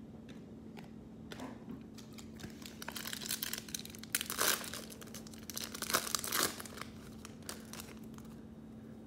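Trading card pack wrapper being torn open and crinkled by hand, in short spells of crackling about three and six seconds in, over a faint steady hum.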